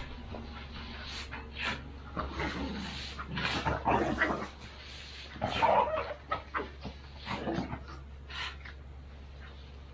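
Wood chips being scraped and tossed with a long-handled barn tool, in irregular rushes that are loudest about four and six seconds in, with a dog's sounds mixed in.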